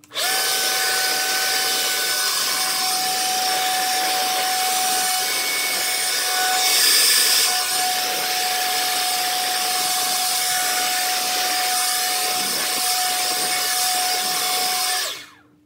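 Battery-powered WORX leaf blower running, a steady rush of air with a fan whine; it starts abruptly and cuts off near the end. The air rush is briefly louder about seven seconds in.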